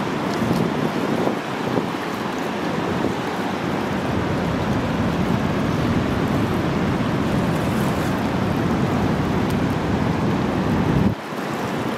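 Whitewater rapids of the upper Niagara River rushing steadily, with wind buffeting the microphone. The low rumble drops away suddenly near the end.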